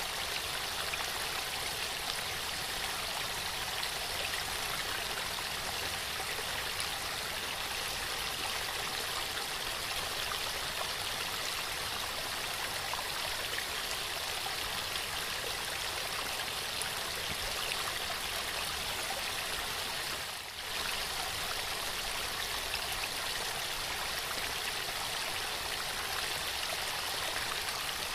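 Waterfall: a steady rush of falling water that dips briefly about two-thirds of the way through.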